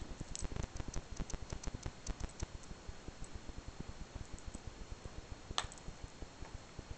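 A cat at her food dish: a run of small quick clicks and taps, thickest in the first two and a half seconds, with one sharper click about five and a half seconds in.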